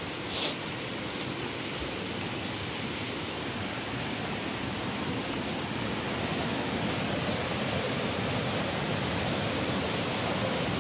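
Steady rushing of river water over falls and cascades, growing gradually louder. A brief sharp sound about half a second in.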